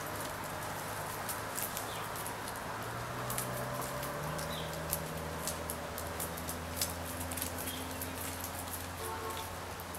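Backyard hens pecking popcorn off bare dirt: many quick, irregular light taps of beaks on the ground. There is a low steady hum underneath and a short cluck near the end.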